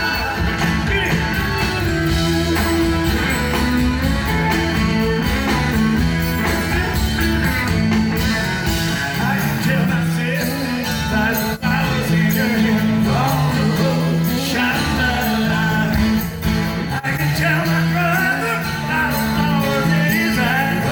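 Live rock band music, an instrumental passage with bass and guitar, played continuously with no sung lyrics.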